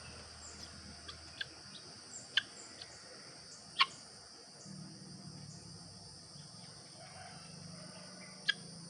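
Birds giving a few short, sharp chirps spread over several seconds, over a steady high insect drone.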